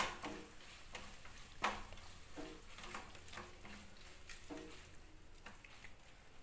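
A spatula stirring and scraping a thick onion-tomato masala with spice paste around a kadai, with faint sizzling from the frying mixture. The stirring comes as a soft run of scrapes and light ticks, one a little louder about one and a half seconds in.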